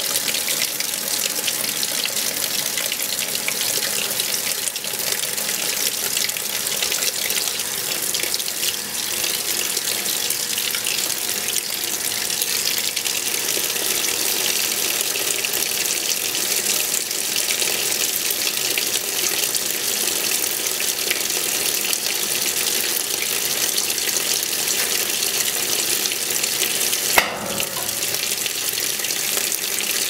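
Water from the fill spout of a vintage Wards top-loading washer with a Norge control panel, pouring steadily into the tub as it fills. A single sharp click comes near the end.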